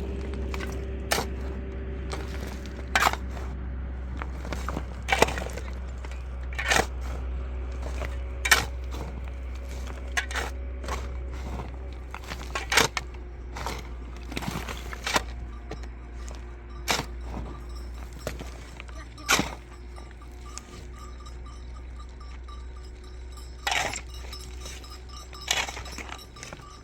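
A series of sharp knocks and clinks, roughly one every one to two seconds and uneven in strength, over a steady low rumble.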